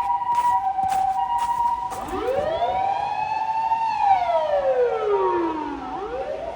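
Japanese ambulance sirens: the two-tone hi-lo "pee-po" pattern, joined about two seconds in by a wail that rises, falls slowly and starts rising again near the end. A quick run of sharp clicks sounds in the first second and a half.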